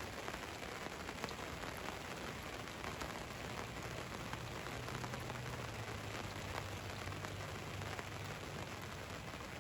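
Steady rain falling on the roof of a van: an even hiss full of small drop taps. A faint low hum comes in for a few seconds in the middle.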